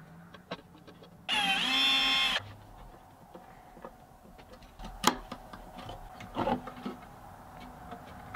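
A small handheld power tool's motor whines for about a second, rising briefly and then holding steady. Scattered light clicks and taps follow as small screws and brass hardware are fitted to a wooden box.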